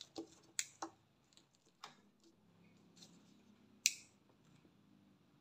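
A few faint handling clicks and knocks in the first two seconds, then one sharp click about four seconds in: a small illuminated plastic rocker switch snapping on.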